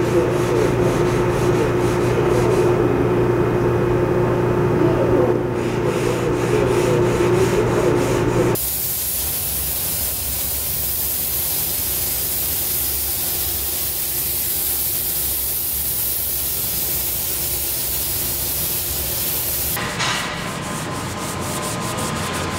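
A power tool runs with a steady hum for about eight seconds. Then a pneumatic paint spray gun hisses steadily as paint is sprayed onto a truck body. Near the end a gloved hand scrubs a body panel with an abrasive pad, a rough rubbing sound.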